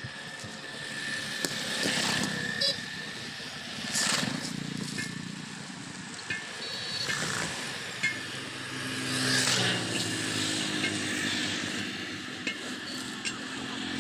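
Rubber inner tube scraping and rubbing against a tractor's rear tyre and rim as it is pushed in by hand, with a few light knocks. An engine hums in the background from about two-thirds of the way in.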